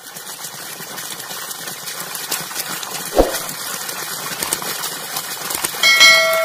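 Rushing water sound effect from a channel intro, with a single sharp click about three seconds in for the subscribe button and a ringing bell chime near the end for the notification bell.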